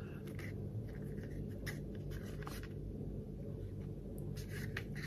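Faint rustling and light scraping of a leather sheath and ferro rod being handled and turned in the hands, over a steady low room hum.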